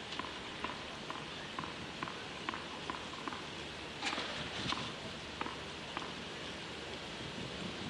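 Tennis ball bounced again and again on the clay court before a serve, in short light taps about two a second, over the steady hum of the stadium crowd. A few louder sounds come about four seconds in, then only the crowd.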